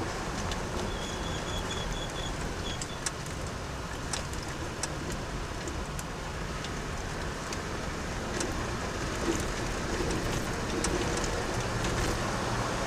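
A car driving on a rough mountain dirt road, heard from inside: steady engine and tyre rumble with scattered small clicks and rattles from gravel and the bodywork.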